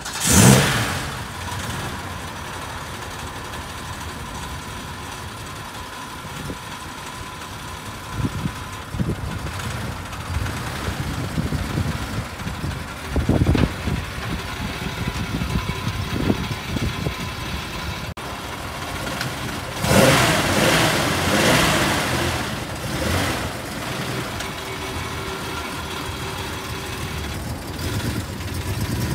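A motor vehicle engine running, with a faint steady whine underneath. There are short louder bursts in the middle and a longer loud stretch about two-thirds of the way through.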